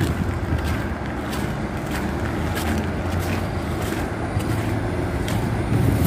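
Footsteps crunching on a gravel and dirt track, a little under two steps a second, over a steady low rumble.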